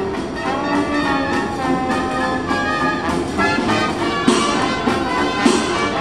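Brass band playing a tune, trumpets and trombones over a tuba, with two sharp drum beats in the second half.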